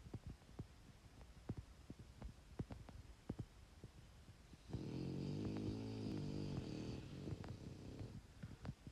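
One long snore, lasting about three and a half seconds, begins around the middle. Faint irregular clicks run underneath.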